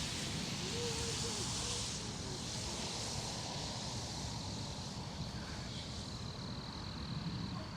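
Steady night-time outdoor ambience: a constant high-pitched insect drone over a low rumble of wind on the microphone, with a faint voice briefly about a second in.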